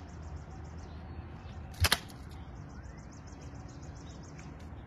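Outdoor ambience: a low steady rumble with a fast, high chirping repeating in the background. Two sharp clicks close together about two seconds in are the loudest sounds.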